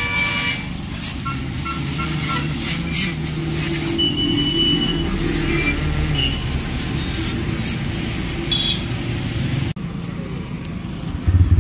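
Roadside traffic with passing vehicles and a few short horn toots over the steady hiss of a hose spraying a motorcycle. Near the end the TVS Raider 125's single-cylinder engine is suddenly heard running, much louder.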